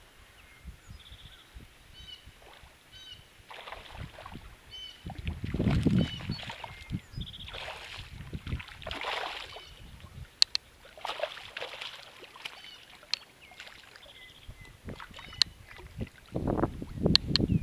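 Hooked largemouth bass splashing and thrashing at the pond's surface while it is played in and landed at the bank, in several separate bursts of splashing, the last and one in the middle the loudest. A few sharp clicks and faint high chirps sound between the splashes.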